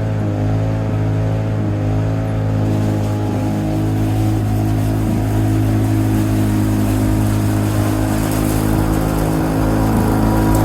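Two-stroke engine of a 1987 Lawn-Boy 8073B walk-behind mower running steadily at speed, getting slightly louder near the end.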